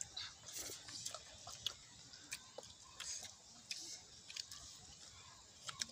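Children chewing mouthfuls of rice and meat eaten by hand: faint wet mouth sounds with scattered small irregular clicks and smacks.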